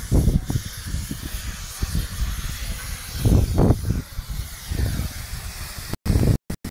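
Steady hiss of an LPG gas torch fed from a cylinder by a hose, with low rumbling wind gusts on the microphone. The sound cuts out briefly a few times near the end.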